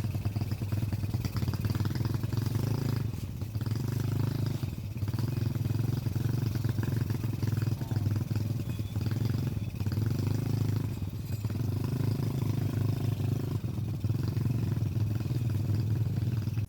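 A small engine running steadily, with a constant low hum and a slight rise and fall every second or two.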